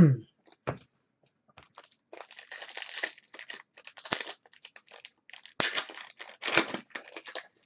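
Trading-card pack wrappers crinkling and tearing as packs are ripped open by hand, in irregular bursts.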